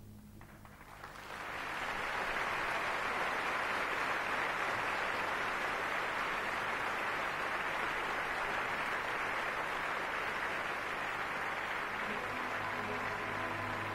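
Theatre audience applauding, swelling in about a second in and holding steady; near the end the orchestra begins playing again under the applause.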